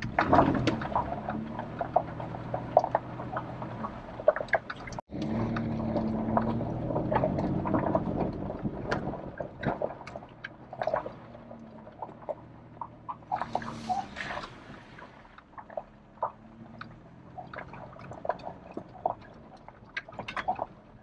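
Truck engine running at low speed, heard from inside the cab, louder for a few seconds midway. Frequent short knocks and rattles come from the cab and body as it bumps along a rough dirt trail.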